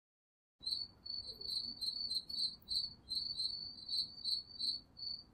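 Crickets chirping: a high, pulsing trill in short chirps, about two or three a second, starting just under a second in.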